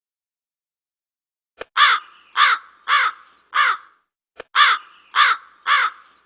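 Crow cawing, a crow sound effect: two runs of harsh caws, about two a second. Each run is led by a faint click.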